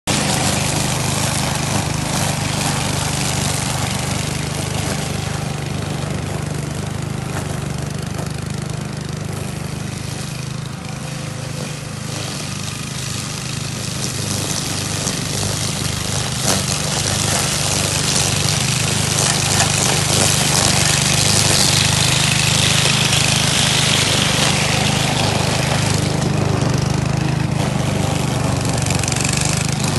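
Cub Cadet wheeled string trimmer's small petrol engine running steadily as it cuts through tall weeds and grass.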